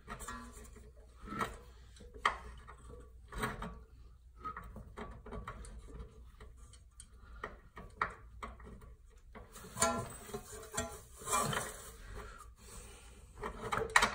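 Background music, with scattered sharp clinks and knocks of metal suspension parts and bolts being handled.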